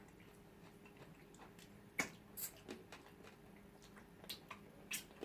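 Faint, scattered mouth clicks and smacks of eating, a handful of short ticks a second or so apart, the clearest about two seconds in.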